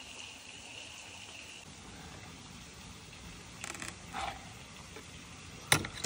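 Flowing stream water as a steady background, with a few light clicks midway. Near the end comes one sharp knock, the loudest sound, as the skewered roast chicken is set down on a wooden cutting board.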